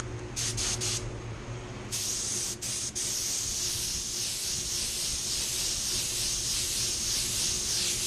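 HVLP paint spray gun spraying basecoat onto a car door. Three short trigger pulls of hissing air and paint come first, then a long steady spray hiss with two brief breaks a second or so later.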